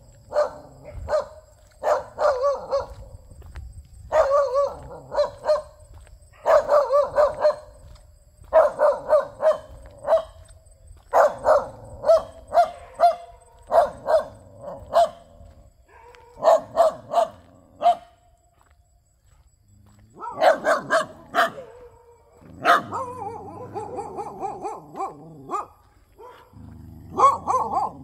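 A dog barking repeatedly in quick runs of several barks, with a short break about two-thirds of the way through, after which the calls become longer and more drawn out.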